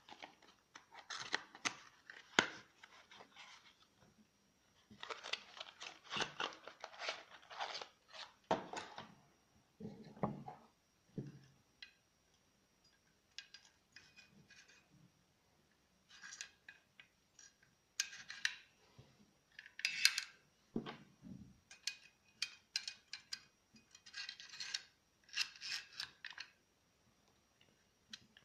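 Handling noise as a cardboard box of staples is opened and a strip of U-staples is loaded into the magazine of a manual staple gun: light paper rustling and small metal clicks and rattles in scattered clusters, with short pauses between them.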